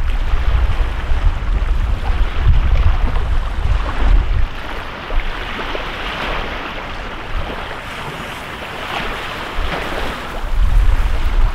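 Wind buffeting the microphone in gusts, with small lake waves washing and breaking on a sandy shore. The wind rumble is strongest in the first few seconds and again near the end, and the waves surge about six and nine seconds in.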